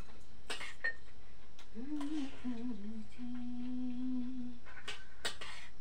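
Someone humming a short wandering phrase that ends on a held note, over a few light clinks of spoons against steel plates.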